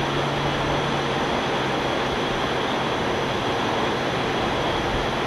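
Steady drone of a light aircraft's engine and airflow, heard from inside the cabin, with a low hum that fades about a second in.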